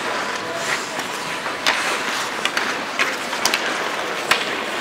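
Ice hockey in play: skate blades scraping and hissing on the ice, with several sharp clacks of sticks and puck.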